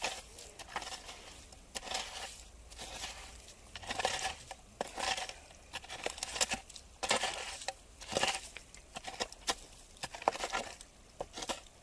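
A wooden branch raking and scraping through wet gravel, stones and leaf litter in a shallow stream bed. It comes in irregular strokes, with small stones clicking and knocking together.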